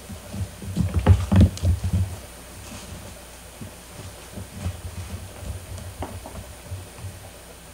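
Kittens scrambling and pawing at a plastic bin on a wooden floor: a quick cluster of dull thumps and knocks about a second in, then lighter scattered taps.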